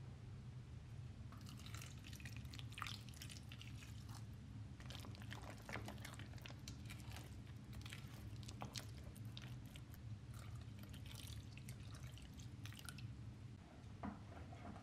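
Water poured into a glass bowl of grated potato, celery leaves and flour, then mixed into a wet batter with a spoon: a fast irregular squelching and clicking of the spoon against the glass that eases off near the end.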